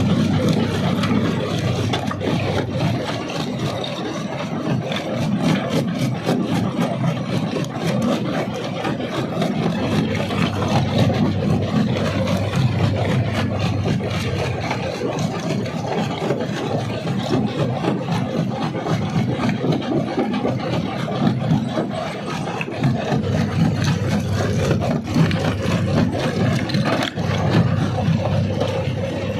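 Rock crusher running under load, rock grinding and cracking in the jaws as a steady dense rumble with constant crunching and knocking.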